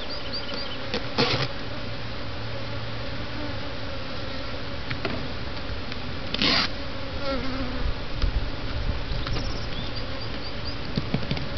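Honeybees buzzing steadily in numbers around a cardboard nuc box being shaken out over a hive; the bees are agitated. Two short knocks stand out, about a second in and a little past the middle.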